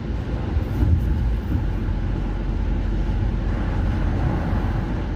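Steady rumble inside a moving car's cabin: engine and tyre noise on a wet road.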